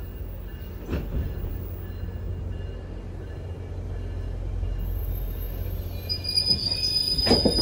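GO Transit bilevel passenger coaches rolling slowly past as the train comes into the station, with a steady low rumble from the wheels on the rails. A wheel knocks over a rail joint about a second in and again near the end. A high steady squeal from the braking train starts about six seconds in.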